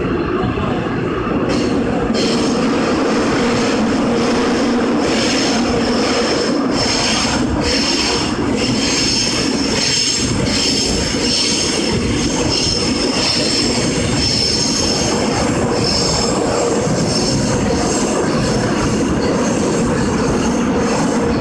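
Seoul Subway Line 6 6000-series train running at speed, with its wheels squealing on the rails: a high-pitched squeal over a steady running rumble. The squeal comes in and the noise gets louder about two seconds in.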